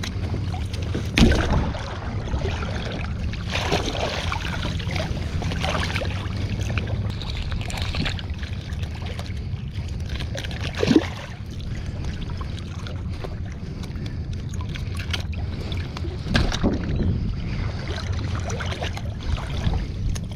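Water sloshing and splashing as sockeye salmon are picked by hand out of a setnet gillnet, with a few sharper splashes, over a steady low rumble.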